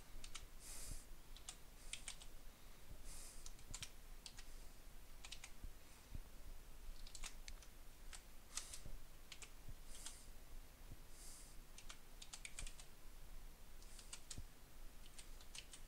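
Faint typing on a computer keyboard: single keys tapped slowly and irregularly, with short pauses between strokes.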